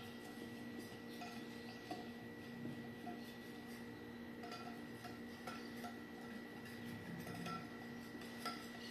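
Spoon clinking and scraping against a bowl as brownie batter is stirred: faint, irregular taps over a steady low hum.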